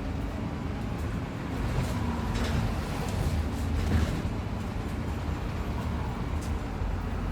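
Inside a moving bus: steady low engine and road rumble, with a few brief rattles and knocks from the body and fittings a couple of seconds in and again near the end.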